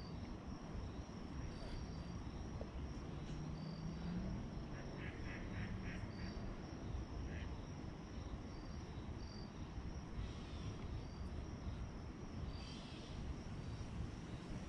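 Outdoor ambience: a steady low rush with faint, short high chirps about once a second, and a quick run of about six bird calls about five seconds in.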